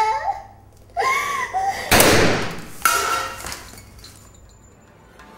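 A woman's pleading cry, then a single loud handgun shot about two seconds in, followed by a second sharp crack about a second later, the sound dying away over the next second or so.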